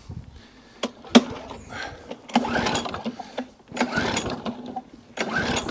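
Briggs & Stratton flathead mower engine being pulled over on its recoil starter, about three short cranking pulls that never fire: it will not start, and it is not priming, which the owner thinks could be the primer bulb.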